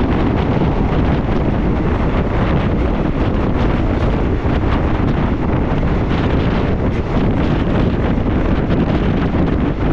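Steady, loud wind rushing over the microphone at the open window of a moving passenger train, with the train's running noise underneath.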